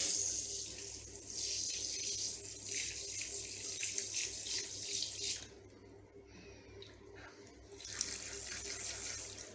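Water spraying from a handheld shower sprayer onto a wet Angora rabbit's fur and into a plastic tub of water. The spray stops for about two seconds a little past the middle, then runs again.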